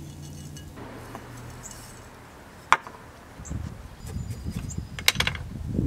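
Gritty bonsai soil mix with worm castings poured from a small metal cup into a terracotta pot, hissing for a second or so. Then a single sharp clink as the cup is set down on the wooden bench, followed by scratching and rustling as a chopstick works the soil in around the seedling's roots.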